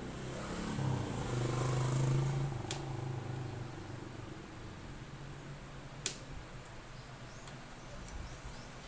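A motor vehicle's engine passes, rising and fading over the first three seconds, followed by a few sharp clicks, the loudest about six seconds in.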